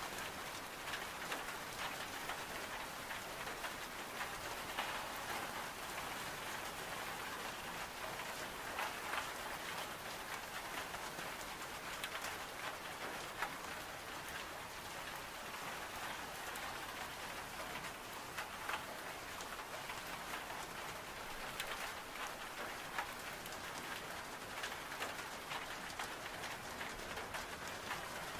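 Steady rain on window glass, an even hiss scattered with frequent small sharp ticks, with the crackle of a wood-burning stove in the mix.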